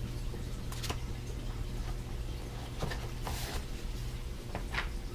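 Scattered light clicks and short rustles of hands handling a gimbal's packaging and instruction papers, over a steady low hum.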